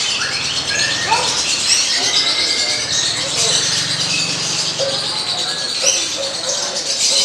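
Lovebirds chirping and calling in a dense, overlapping chatter of short high chirps throughout, with voices in the background.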